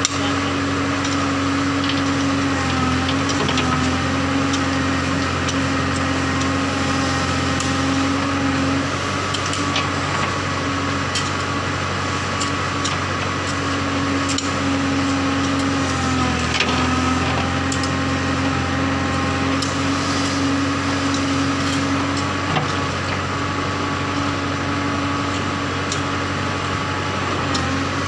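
Diesel engine of a JCB backhoe loader running steadily under load. Its note dips briefly twice, about three seconds in and again around the middle.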